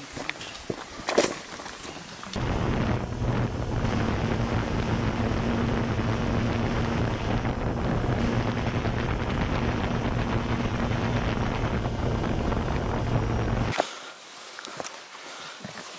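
Steady aircraft engine and wind noise, a dense rush with a low, even hum. It cuts in abruptly a couple of seconds in and cuts off abruptly near the end. Before and after it, footsteps and trekking-pole clicks on a rocky trail.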